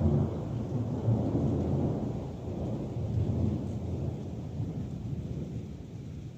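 Rolling thunder from a nearby strike: a long, loud low rumble that swells suddenly at the start and slowly dies away, over steady rain.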